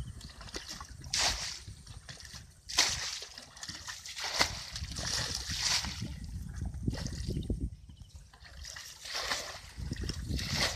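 Plastic bucket bailing water from a shallow, muddy field ditch: repeated scoops and pours splashing out, one every second or two, with a short pause partway through.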